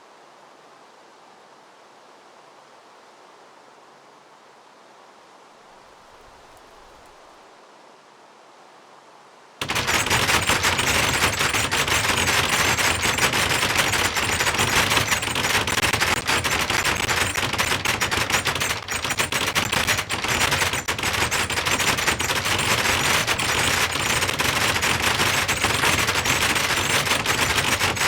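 A fence rattling: faint hiss, then about ten seconds in a loud, continuous, very rapid clatter starts suddenly and keeps going.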